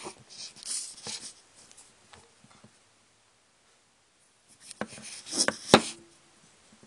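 Camera being handled and repositioned right at the microphone: scattered rubbing and clicks, a short silent gap, then a cluster of knocks and scrapes about five seconds in, with one sharp knock.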